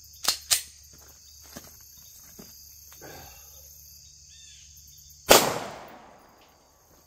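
A single 9mm full metal jacket shot from a Glock 19X pistol about five seconds in, sharp and very loud, with a tail of echo dying away over about a second. Near the start, two sharp clicks as the pistol is handled and readied. Crickets chirp steadily throughout.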